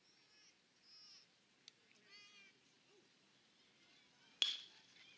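A single sharp, ringing metallic ping about four and a half seconds in, typical of a metal baseball bat hitting the ball. Before it come several faint, short, high-pitched calls.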